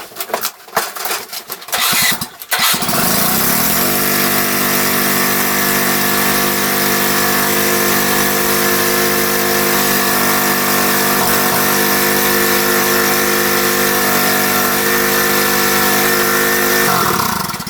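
Riding lawn mower engine starting about three seconds in, revving up and then running steadily, before winding down and stopping near the end.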